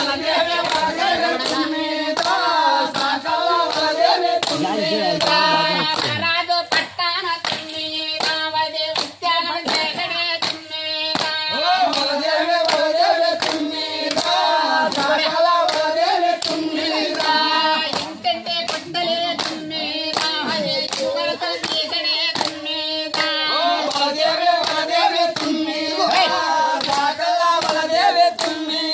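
A group singing a folk song together, with hands clapping in a steady rhythm.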